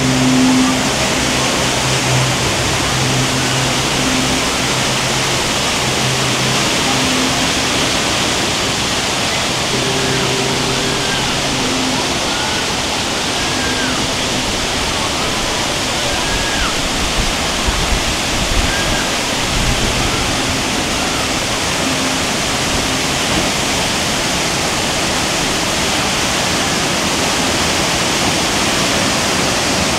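Steady, loud rush of falling water, like a large waterfall. A low hum underneath fades away after about ten seconds.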